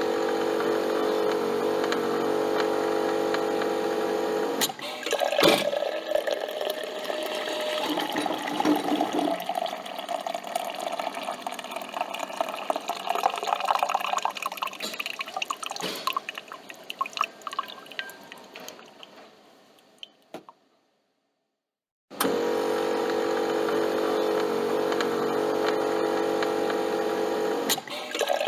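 Coffee machine running: a steady mechanical hum, then gurgling and dripping liquid that fades out about twenty seconds in. After a short silence the hum starts again near the end.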